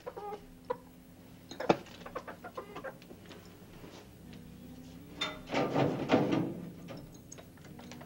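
Domestic chicken clucking, mixed with knocks and clatter from a wooden animal cage, with a louder, noisier stretch about six seconds in.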